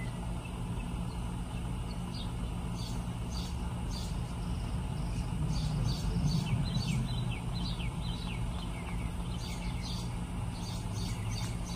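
Small birds chirping in short, quick calls, some falling in pitch, over a steady low hum.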